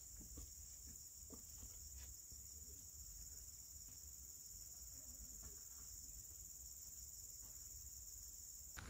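Faint, steady, high-pitched insect drone over a low rumble.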